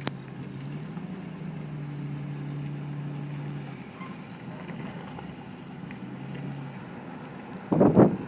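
A motor running with a faint, steady low hum that fades about four seconds in and comes back briefly. Near the end, wind gusts buffet the microphone loudly.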